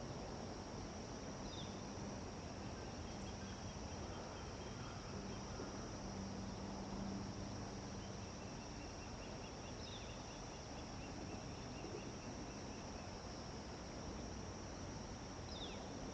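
Insects trilling in a steady, unbroken high chorus. A bird gives three short falling chirps spread across the stretch.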